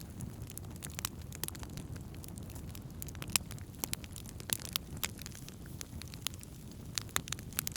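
Wood campfire burning, crackling and popping in sharp, irregular snaps over a steady low rumble.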